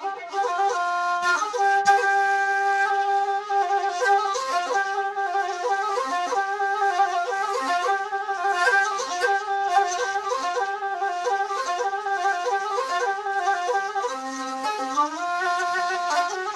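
Dilli kaval, a long wooden duct flute, playing a solo melody: one breathy line moving between held notes and quick runs, with a dip to a low note and a slide back up near the end.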